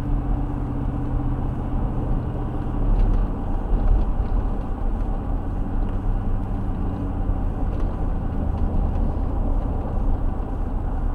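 Steady road and engine noise inside a moving car: a continuous low rumble with a faint engine hum underneath.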